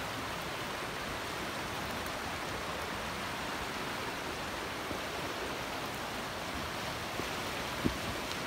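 Creek rushing over rocks: a steady, even rush of water. A single brief knock comes near the end.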